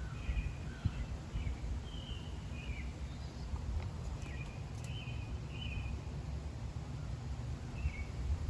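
Wild birds chirping around a backyard bird feeder: short high chirps, some slurring downward, in scattered groups over a steady low rumble.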